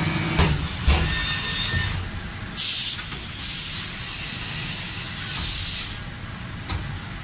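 Industrial machine sounds: two knocks, then a brief high whine. After that comes a short loud hiss and a longer hiss lasting about two and a half seconds, and a single click near the end.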